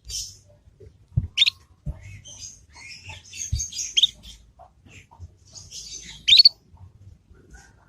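Young canary in its learning stage singing a soft, rambling twitter (ngriwik), scattered high chirps with three sharper calls standing out, the loudest a little past six seconds in. A few short low thuds fall in the first half.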